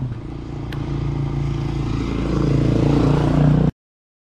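A motor vehicle engine running and growing louder, then the sound cuts off abruptly near the end into complete silence.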